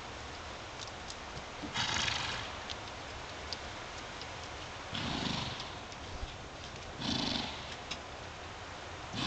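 Horses giving several short, breathy snorts, spaced a few seconds apart, over a steady background hiss.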